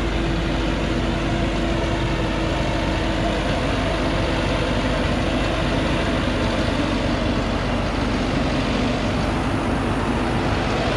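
Heavily loaded log truck's engine working hard as the truck crawls up a steep, muddy dirt slope: a steady drone that sags slightly lower in pitch in the second half.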